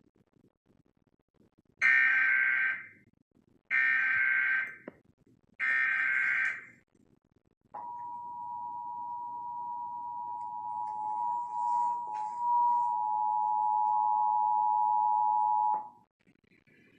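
Emergency Alert System Required Monthly Test signalling. Three SAME header data bursts, each a buzzy digital tone lasting about a second, come first. They are followed by the EAS attention signal, a steady two-tone sound of 853 and 960 Hz held for about eight seconds, which cuts off abruptly.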